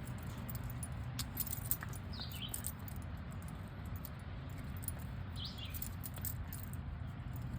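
Dog chewing a wooden stick: irregular crunching and clicking of teeth on wood.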